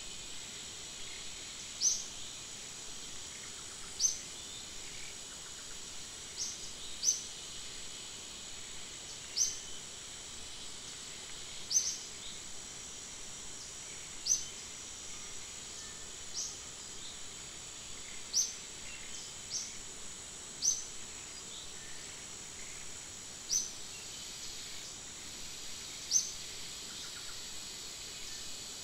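Forest ambience: a steady high insect drone, with a short, sharp high-pitched chirp repeating every two seconds or so.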